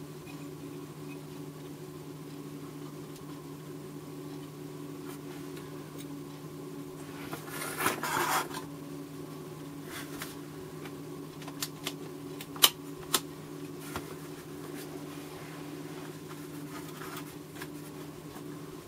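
Hands moving and handling a copper-plated tube-circuit chassis on a cardboard-covered bench: a short scraping rustle about eight seconds in, then a few sharp clicks and taps around twelve to thirteen seconds, one of them much louder. A steady low hum runs underneath.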